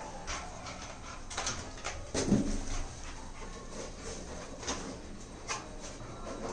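A beagle gives a short whimper about two seconds in while nosing and pawing at a rubber balloon, with scattered light scuffs and taps around it.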